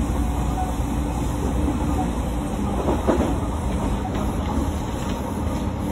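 Odakyu 3000 series electric commuter train running along the track, a steady rumble of wheels on rail with a brief louder clatter about three seconds in.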